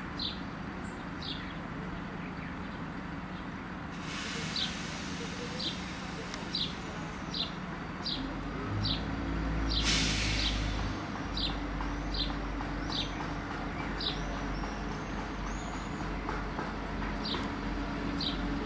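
Diesel multiple unit's engines running at idle, then opening up into a heavier rumble about eight seconds in as the train starts away, with a brief burst of hissing air about ten seconds in. A bird chirps over it, roughly once a second.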